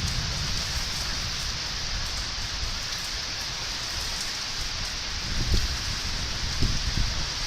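Thunderstorm rain falling steadily, a continuous hiss, with a few brief low rumbles about five and a half and seven seconds in.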